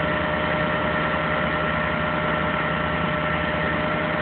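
Tow truck's engine running steadily, with a steady high-pitched whine over it.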